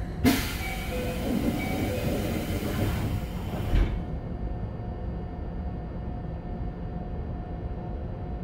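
Keikyu 1500 series commuter-car passenger doors sliding with a loud rushing hiss that lasts about three and a half seconds. It starts with a sharp knock and ends with a thump as the doors reach their stop. Afterwards the standing train's low, steady hum and faint whine of its equipment remain.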